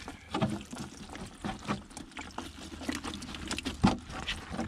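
Water trickling and dripping from a wet whitebait net as fish are picked out by hand, with small irregular splashes and one louder sharp sound near the end.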